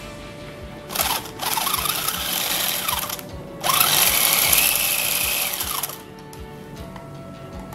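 Small DC motor of a homemade RC car spinning the wheels through its gears, run twice: each time the whine rises as it spins up, holds, then falls away as it slows. Background music plays underneath.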